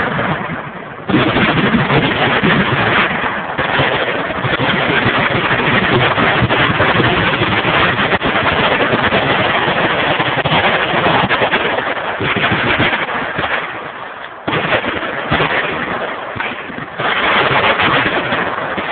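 Sustained automatic gunfire from many machine guns firing at once, overlapping bursts merging into a continuous loud rattle. It drops back briefly and surges again suddenly about a second in, and twice more near the end.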